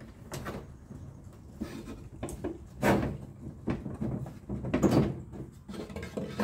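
Handling knocks and clatter at a bandsaw: the upper blade guide is slid down and a wooden board is shifted on the metal table. Several separate knocks, the loudest about three and five seconds in.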